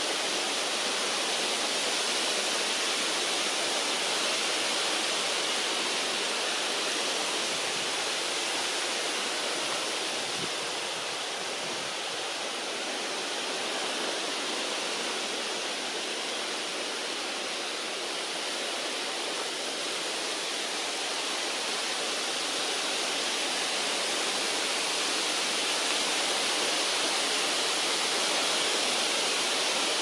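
A steady, even rushing hiss, strongest in the upper range, with no distinct events or changes.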